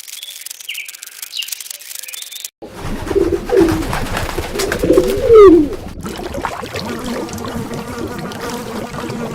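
A few faint high chirps over a rustling hiss. Then, after a cut about two and a half seconds in, a pigeon cooing in low, falling coos, loudest near the middle.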